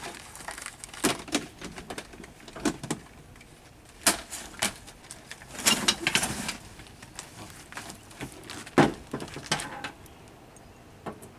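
Scattered clicks, knocks and light rattles of gear and plastic containers being handled in the bed of a pickup truck, with a sharper knock about nine seconds in.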